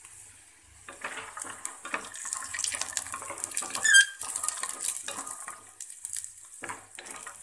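Raw peanuts frying in oil in a stainless steel pan, a steady high sizzle under the clatter and scrape of a wooden spatula stirring them around the pan from about a second in. A short, sharp squeak about four seconds in is the loudest moment.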